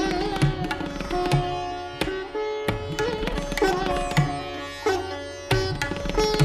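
Instrumental music: a plucked string melody with notes that slide and bend in pitch, over occasional low drum strokes.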